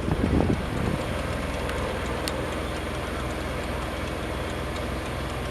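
Boat's Yanmar 6KY-ET marine diesel engine running steadily with a low drone, with a brief louder rumble about half a second in.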